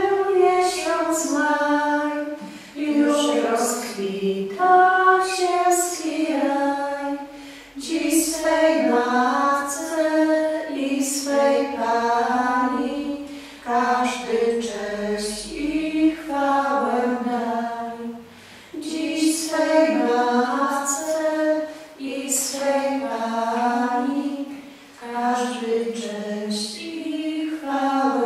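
Female voices singing a slow melody, in phrases of a few seconds with short breaks between them.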